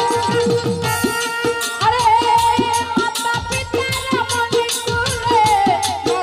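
Live Bengali Baul folk music: a hand drum keeps a steady quick beat of about four strokes a second under rattling percussion and a held melody line, and a woman's singing voice comes in about two seconds in.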